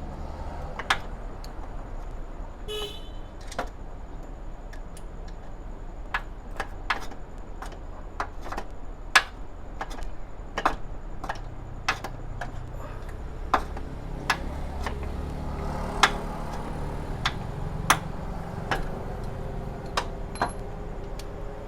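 Irregular sharp metallic clicks and knocks of hand tools on the car's air-conditioning compressor and its mounting bolts as it is taken off, over a steady low hum, with a low vehicle-like drone building in the second half.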